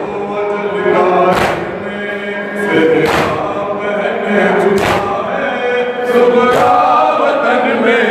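Men chanting a noha, a Shia lament, in chorus, cut by four sharp unison slaps of hands on chests in a steady beat about every second and a half to two seconds: matam keeping time with the lament.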